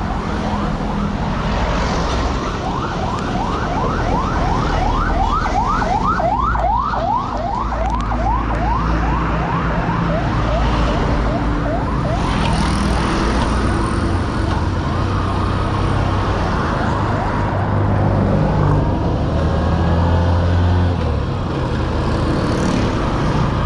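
Motor vehicle engine and road noise running steadily, with a siren-like yelp of quick rising whoops, about four a second, for several seconds early on.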